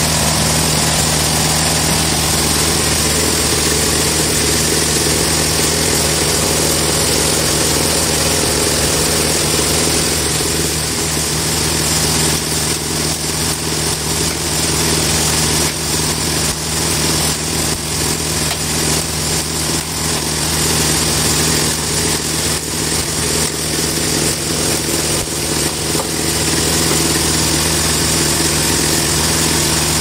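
Band sawmill machinery running idle, with no log in the cut: a steady, loud drone with a low hum. Irregular knocks and rattles come and go through the middle.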